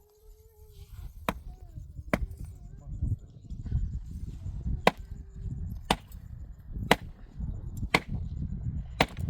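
Wood being chopped: seven sharp, separate strokes, two in the first few seconds and then about one a second from about five seconds in, over a steady low rumble.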